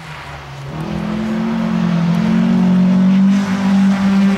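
Two-wheel-drive rally car's engine held at high revs as the car approaches and passes, getting louder over the first few seconds, with one short dip in the engine note about three and a half seconds in.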